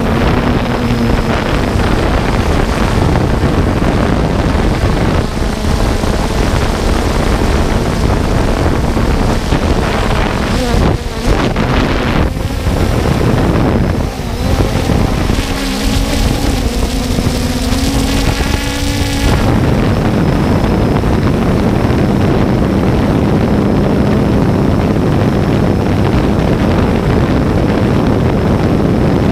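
3DR Solo quadcopter in flight, heard through its onboard GoPro: the rotors hum steadily under loud wind rush on the microphone. For several seconds around the middle the motor tones rise and shift as the drone manoeuvres.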